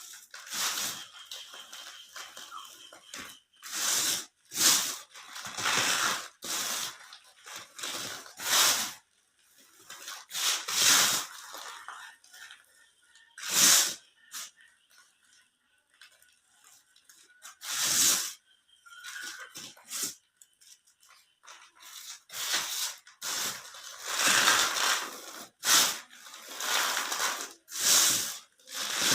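Soft pink cubes and cement crumbling in irregular crunchy bursts, each up to about a second long, with short quiet gaps between them.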